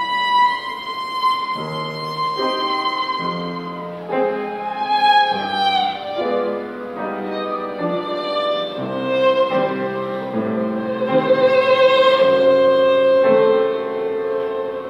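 Violin playing a slow, lyrical melody of long bowed notes, with a sliding note about five seconds in and a long, loud held note about eleven seconds in.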